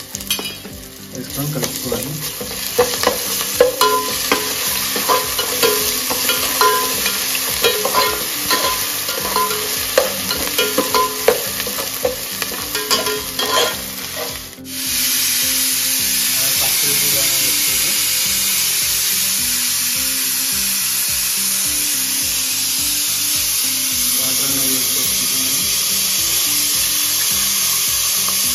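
Whole spices and green chillies sizzling in hot ghee and oil in a pot, with a spoon clicking against the pot as they are stirred. About halfway through this gives way to a steady, louder rush of water being poured into the pot.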